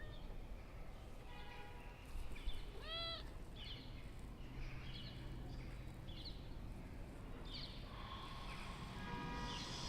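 Domestic cat making a string of soft short chirps, with one short arched meow about three seconds in.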